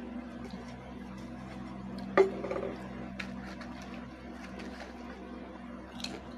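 A clear plastic food tray is handled and seaweed-flavoured chips are picked out of it, giving scattered light clicks and crackles over a steady low hum. The loudest click comes about two seconds in, and a short crunch near the end is a chip being bitten.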